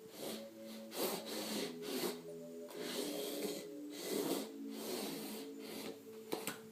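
A simple electronic toy melody of short, even beeping notes playing from a baby's musical play mat, with short breathy noises about once a second over it.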